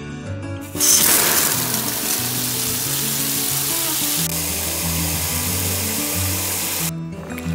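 A strong jet of water spraying onto a pile of freshly dug, dirty peanuts in the shell to rinse them: a loud hiss that starts suddenly about a second in and cuts off sharply near the end, over background acoustic guitar music.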